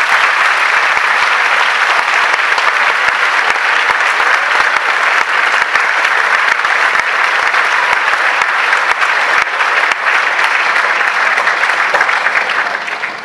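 Audience applauding steadily after a choir performance, fading out near the end.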